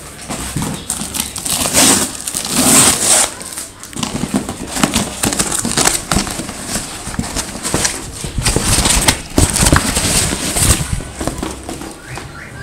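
Cardboard box being opened by hand: irregular rustling, scraping and crinkling of the flaps and of the white wrapping around a helmet as it is pulled out, with many small sharp clicks.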